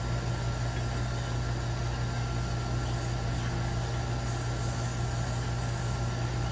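A steady low hum with a faint even hiss behind it, unchanging throughout.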